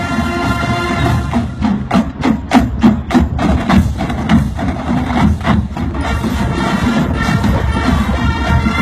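Marching band playing: the horns hold chords, break off for a few seconds of sharp percussion hits from the drum line, then come back in near the end.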